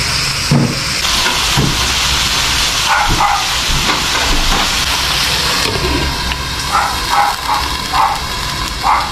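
Sliced tomatoes and onion frying in oil in an aluminium wok: a steady sizzle that drops away about six seconds in, when a glass lid goes onto the wok. A run of short, sharp sounds repeats over the last few seconds.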